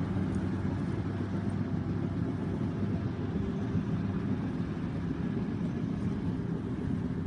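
A vehicle engine running steadily, with a constant low hum.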